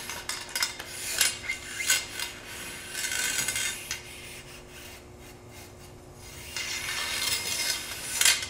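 Wire bore brush on a cleaning rod scrubbing up and down inside a shotgun barrel, a metallic rasping with each stroke, loosening fouling in the solvent-wetted bore. The scrubbing eases off for a couple of seconds midway, then picks up again.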